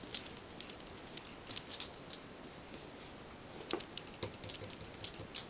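Scattered light clicks and taps as a dog moves about and handles a ring toy, with a couple of louder knocks about four seconds in.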